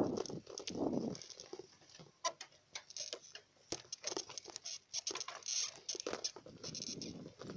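Rapid, uneven clicking and scratchy rattling from a bicycle ride, picked up by a phone loosely propped on the handlebars, with a low rumble that fades about a second in.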